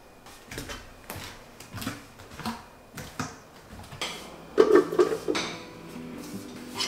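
Dishes being handled at a kitchen sink: scattered light knocks and clicks, then a louder clatter of crockery with a brief ring about four and a half seconds in. Soft music comes in near the end.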